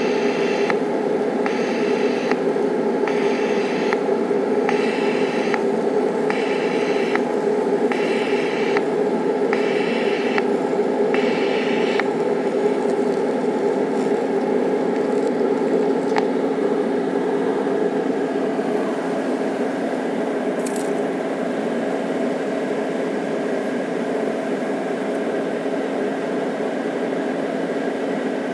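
DC-negative TIG welding arc on thick aluminum under helium, its hiss swelling and easing about once a second as the pulser cycles between about 150 and 200 amps. About twelve seconds in, the pulsing stops and a steady hum and hiss carries on.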